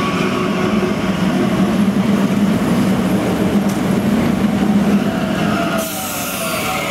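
Translohr rubber-tyred tram on Michelin tyres passing close by: a steady rolling hum of tyres and drive. About six seconds in a high hiss starts and a whine falls in pitch.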